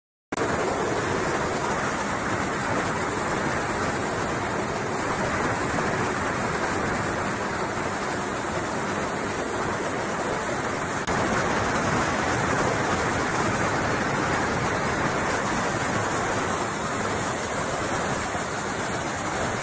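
Pressure washer jet spraying water onto a concrete driveway and kerb: a steady, even hiss of spray. It cuts in sharply at the start and gets slightly louder about halfway through.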